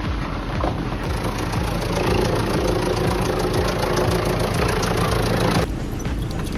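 Heavy machinery engine running steadily under dense mechanical noise, changing abruptly about five and a half seconds in.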